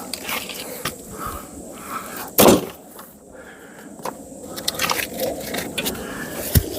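Firewood logs being handled: scattered wooden knocks and scrapes, with one loud heavy wooden thud about two and a half seconds in.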